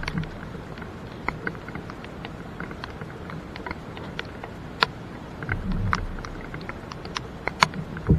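Rain falling: many irregular sharp raindrop ticks over a steady hiss, with a brief low rumble a little past halfway.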